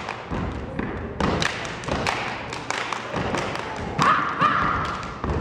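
Step team stepping: irregular stomps and claps on the stage floor, with a brief shout about four seconds in.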